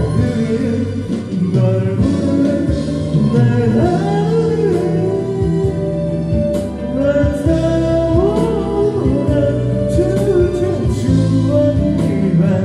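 Karaoke backing track of a Korean pop ballad with a singer's voice over it, sung through the karaoke room's microphone.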